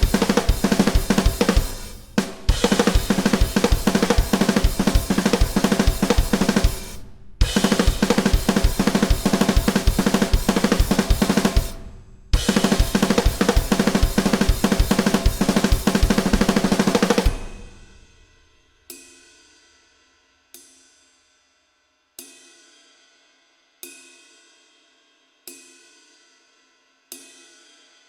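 Drum kit played fast and hard: dense bass drum, snare and cymbal strokes that break off briefly three times. About eighteen seconds in, the kit drops to single accented hits about a second and a half apart, each left to ring out.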